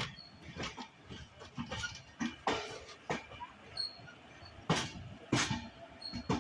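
Coach wheels of the Nagercoil Antyodaya Express rolling slowly over rail joints and points, giving a series of sharp, irregularly spaced clacks over a low running rumble.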